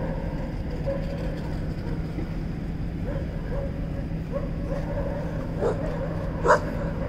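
Puppies playing, with soft wavering whimpers coming and going and two sharp yips near the end, over a steady low rumble.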